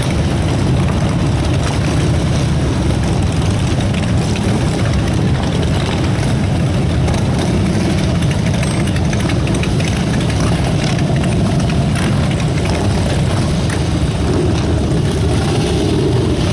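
Engines of a procession of motorcycles, cars and trucks running at low speed as they roll in, blending into one steady, low rumble with no single vehicle standing out.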